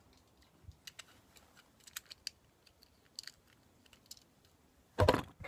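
Scattered light clicks and ticks of a small object being handled. A louder, fuller sound follows about five seconds in.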